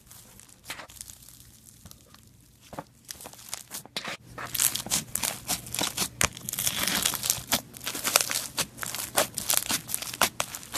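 Slime being squeezed and worked by hand, popping its air bubbles: a few scattered pops at first, then a dense run of crackling pops from about four seconds in.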